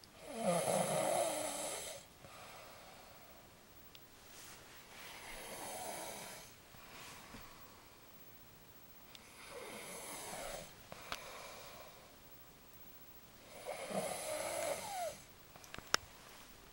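A sleeping man snoring, a sound the uploader likens to a sea lion: four long snores, each one to two seconds, coming about every four to five seconds with quiet in between.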